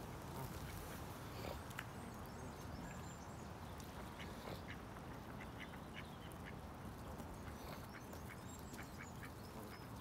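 Faint, short waterfowl calls coming one after another, over a low steady background noise.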